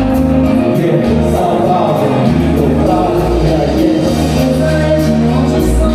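Music with singing, a full band with a strong bass line and a steady beat.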